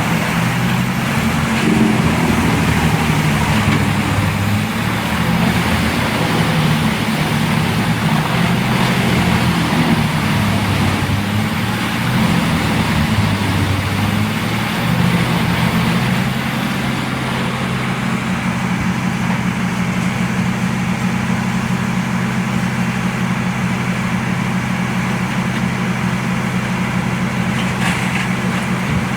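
Large wood chipper's engine running hard, its pitch and level wavering through the first half of the clip and then settling into a steady drone about halfway through. A faint high whine runs over it and stops at the same point.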